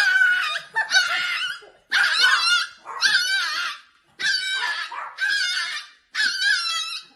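Small white Pomeranian puppy barking and crying in a string of high-pitched bursts, about one a second with short pauses between them.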